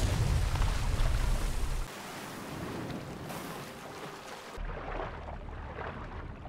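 Ocean surf and waves, with a loud low rumble that cuts off abruptly about two seconds in, leaving quieter wash of water.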